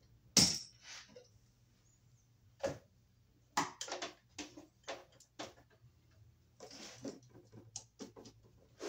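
Scattered clicks, taps and scrapes of hand tools and stiff copper wire being handled while a wire is bent around a receptacle's screw terminal. A sharp click about half a second in is the loudest, with a short rustling stretch about two-thirds of the way through.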